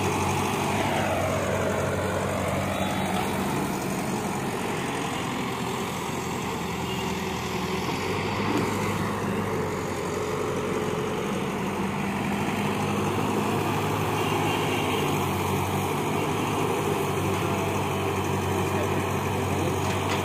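Caterpillar hydraulic excavator's diesel engine running steadily under load as it digs mud, with a tone that dips and rises again in the first few seconds.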